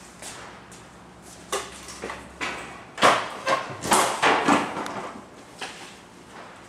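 Knocks, scrapes and rustles of boxes and a bag being handled and shifted by hand, in a quick cluster loudest about three to four and a half seconds in.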